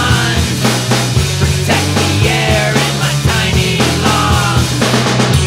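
Rock song playing: a band with a steady drum beat and bass under a woman singing.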